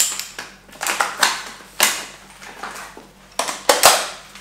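Magazine change on a magfed paintball marker: a run of clacks and rustles as the empty magazine is pulled and stowed in a fast-mag pouch and a fresh one is drawn and pushed in, with the loudest clacks near the end.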